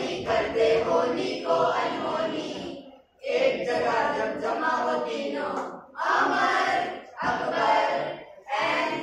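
A group of voices singing together in unison, in phrases of one to three seconds with short breaks between them.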